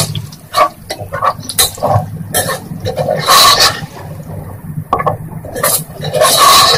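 A spatula scraping and stirring chopped onions and green chillies frying in oil in a metal pot, a string of irregular scraping strokes over the sizzle of the frying.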